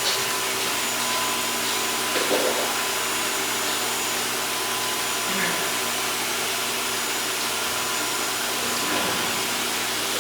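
Pet blow dryer running steadily with an even rushing blast of air and a steady motor hum.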